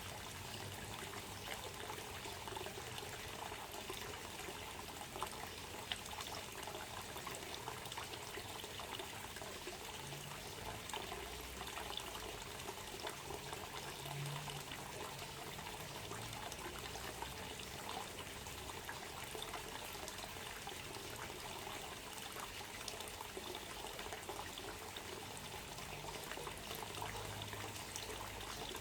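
Water trickling and pouring steadily, with small splashes.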